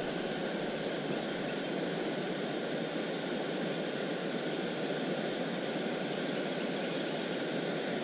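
Steady rushing of water from a small waterfall on a creek, an even hiss with no breaks.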